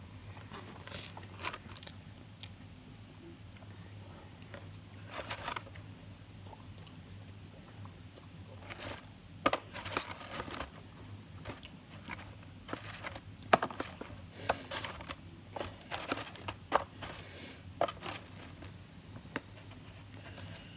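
Paper takeout wrapper crinkling and rustling as food is picked out of it, in irregular bursts that grow busier about halfway through, over a steady low hum.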